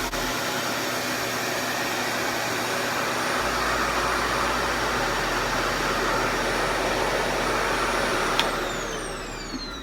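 RevAir reverse-air hair dryer running with a steady, loud rush of suction air as it draws hair into its wand. A little over eight seconds in, a click, and the motor winds down with a falling whine.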